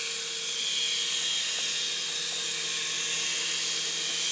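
Toy 3.5-channel remote-controlled helicopter in flight: the steady high whine of its small electric motors and spinning main rotors.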